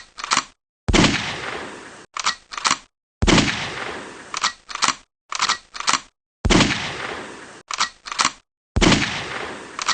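Toy ring cap gun firing: four loud bangs, each trailing off over about a second, with quick pairs of shorter, sharper cracks in between.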